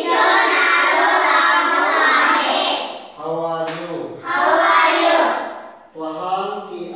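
A class of young children reciting phrases loudly in chorus after a male teacher: their group repetition runs for about three seconds, the teacher's single voice calls the next phrase, the children chorus it back, and the teacher speaks again near the end.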